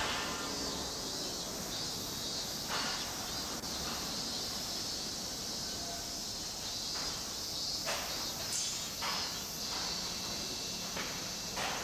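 Construction-site ambience: a steady high-pitched hiss with a few sharp knocks from work on the site, scattered through.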